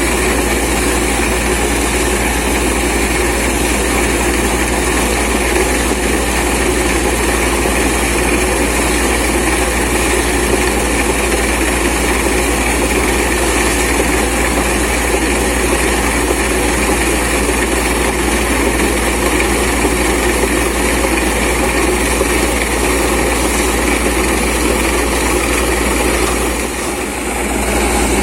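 Borewell drilling rig and its air compressor running steadily and loud, with a brief dip near the end.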